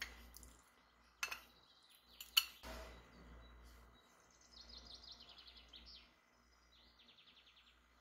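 A few sharp clinks of kitchenware in the first three seconds, then a bird trilling in two runs of rapid, high, evenly repeated chirps in the background.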